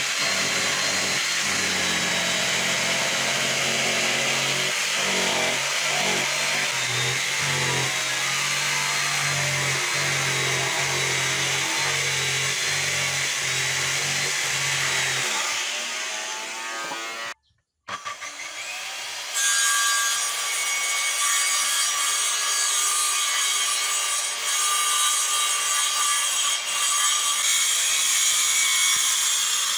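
Electric jigsaw cutting through a wooden board, a steady buzzing saw for about fifteen seconds. After a short break a handheld circular saw cuts the board, a higher whine that runs to the end.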